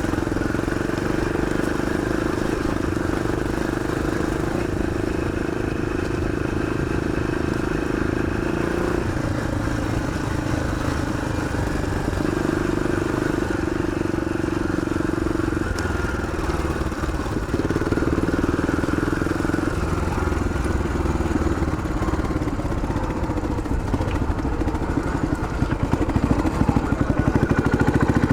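1981 Yamaha XT500's single-cylinder four-stroke engine running steadily while riding, its note stepping up and down every few seconds with throttle, over wind and tyre noise.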